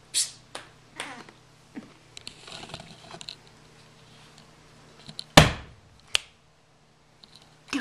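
Handling noise from a camera being picked up and moved: scattered short knocks and rustling, then one loud thump about five seconds in.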